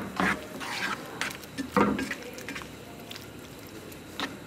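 Silicone spatula stirring and scraping chicken in sauce around a skillet: a few soft knocks and scrapes in the first two seconds, then quieter stirring.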